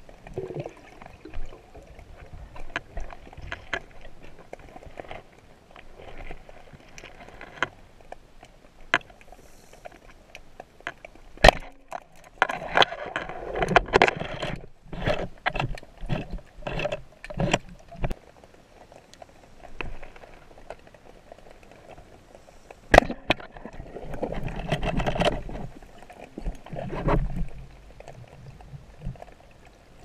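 Underwater noise picked up by a camera on a speargun as the diver swims: scattered sharp clicks and knocks, with two louder stretches of rushing, gurgling water about a third of the way in and again near the end.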